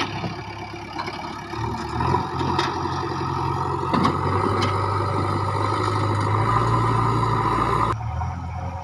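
JCB backhoe loader's diesel engine running steadily, with a few short knocks. The engine sound drops and thins about eight seconds in.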